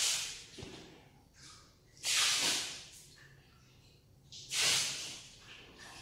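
Breaths close to the microphone: three hissing breaths about two and a half seconds apart, at the start, about two seconds in and about four and a half seconds in.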